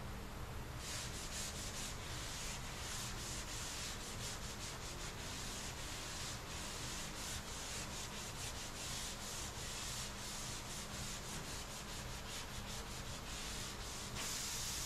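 Sandpaper on a sanding block being rubbed by hand over cured Bondo body filler on a car's quarter panel, a rasping hiss of quick back-and-forth strokes. It starts about a second in and becomes a steadier, slightly louder scrubbing near the end.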